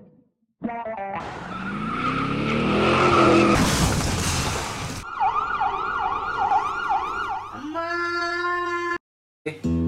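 A rush of noise that swells for about four seconds and cuts off suddenly, followed by an emergency-vehicle siren whooping up and down about twice a second, then a held tone.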